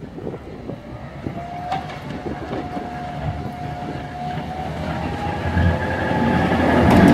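Serbia Cargo class 661 diesel locomotive (EMD G16, two-stroke V16 engine) approaching with a freight train, its engine rumble and wheel noise growing steadily louder as it nears. A steady high tone sounds for about three seconds in the first half.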